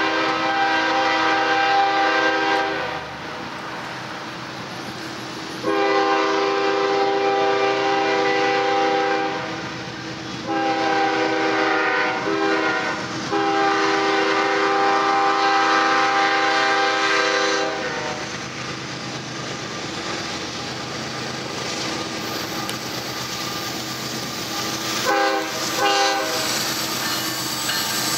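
Diesel locomotive air horn on a BNSF ES44AC, a chord of several notes, sounding long, long, short, long for a grade crossing, then two brief toots near the end. Between and after the blasts the lead locomotives' diesel engines rumble as the train draws closer.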